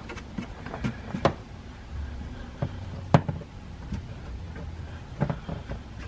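Scattered sharp knocks and clicks, the loudest about three seconds in, as a suction hose is worked in the rear differential's fill hole to draw out the last of the old gear oil, with a faint low hum underneath from about two to five seconds in.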